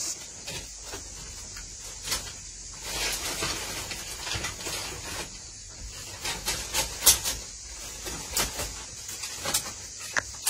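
Bread-making handling sounds: irregular rustling and scraping of hands working flour and dough in a plastic basin, with sharp clicks that come thicker in the second half, over a faint steady hiss.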